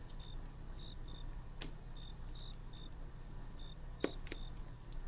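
Quiet campfire ambience: firewood crackling with a few sharp pops, about one and a half seconds in and twice near four seconds, over a low steady rumble. Crickets chirp in short, irregular chirps throughout.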